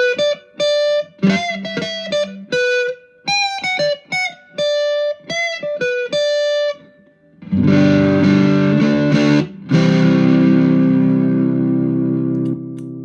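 Electric guitar on its neck pickup through a JHS Ross Distortion pedal in silicon mode into a Vox AC10 amp. It plays a single-note melodic line for about seven seconds, then two strummed chords, the second left ringing and slowly fading.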